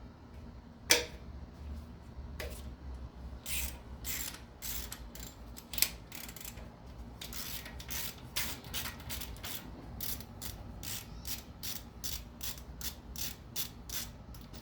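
Hand ratchet wrench clicking as a bolt is backed out of an engine, a long run of short clicks at about two to three a second from about three seconds in. A sharp knock about a second in is the loudest sound.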